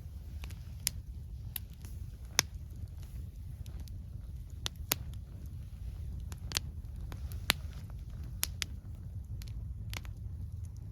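Wood campfire crackling, with irregular sharp pops about once a second over a steady low rumble.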